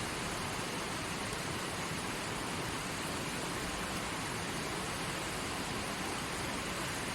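Forest stream flowing steadily over rocks: an even, unbroken rush of water.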